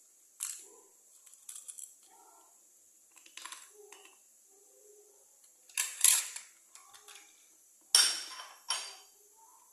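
Dried cloves being dropped into a small jar of chopped garlic: scattered small clicks and clinks, with a few louder knocks about six and eight seconds in.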